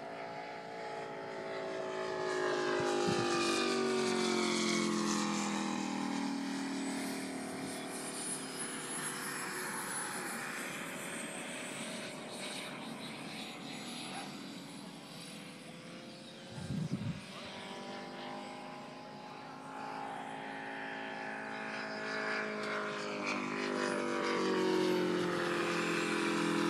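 Radio-controlled scale model airplane's engine and propeller on low passes: the engine note drops in pitch and fades as the plane flies by, then swells and rises again as it comes back around. There is a brief low thump about 17 seconds in.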